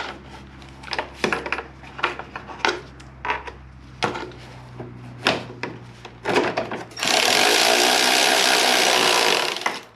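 Plastic and metal parts clicking and knocking as they are handled and fitted, then a handheld power tool runs steadily for about two and a half seconds near the end and stops abruptly.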